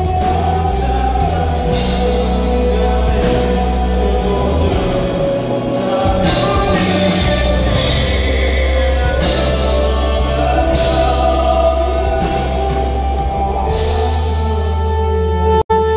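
A live band playing loudly, with sustained chords and regular drum and cymbal hits. The sound cuts out for an instant near the end.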